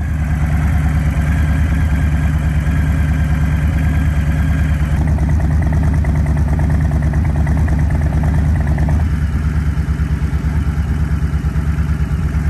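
Harley-Davidson Street Bob's V-twin engine idling steadily, a loud, even, rapid pulse.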